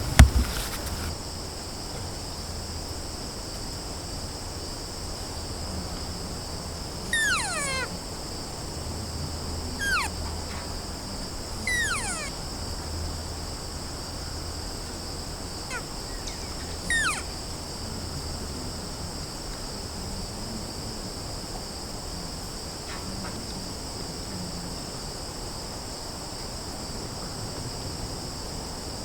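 Insects, likely crickets, trilling steadily and high-pitched throughout. Over this, about five short calls fall sharply in pitch, spread across the middle of the stretch.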